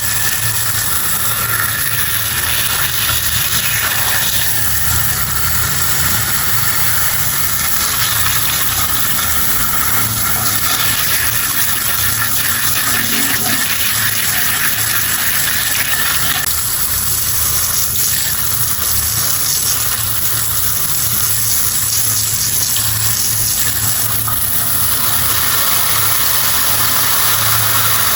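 Water spraying steadily with a small motor humming underneath, the spray hiss growing stronger for several seconds in the second half.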